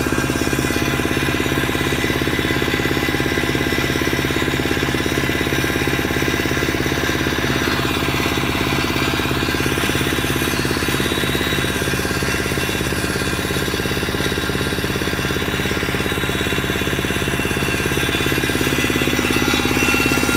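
Small diesel engine of a wood chipper running steadily, with a rapid, even chugging beat.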